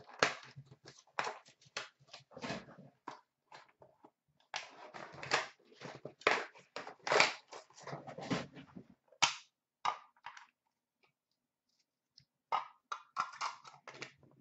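Trading-card box and its plastic wrapping being handled and opened: rapid crinkling, crackling and clicking, with a pause of a couple of seconds about ten seconds in before a few more crackles.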